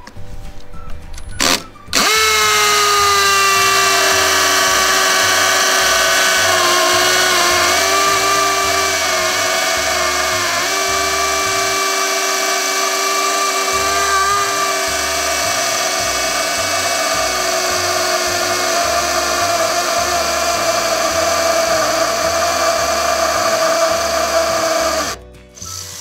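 HiKOKI DV12DD 10.8 V cordless vibration driver drill in hammer mode boring into a thick stone block with a 4.5 mm masonry bit. After a short blip of the trigger it runs steadily under load for over twenty seconds, its pitch dipping slightly a few times as the bit bites, and it stops about a second before the end.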